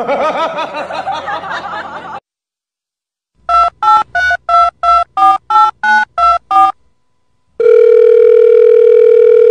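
A wavering, voice-like sound for about two seconds, then after a short pause ten telephone keypad touch-tone beeps, about three a second, each a pair of tones at a slightly different pitch, like a number being dialled. A steady telephone tone then sounds through the last two seconds.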